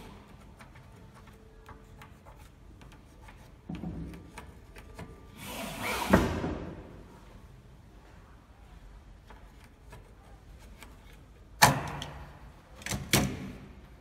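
Steel mortise lock case and a thin marking tool handled against a wooden door: scattered light clicks and taps, a louder scrape ending in a knock about six seconds in, and two sharp knocks near the end.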